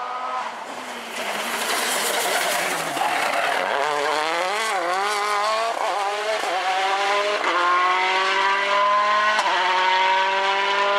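Rally car engine working through a corner, the throttle modulated, then accelerating hard on tarmac, its pitch rising in steps with three quick upshifts.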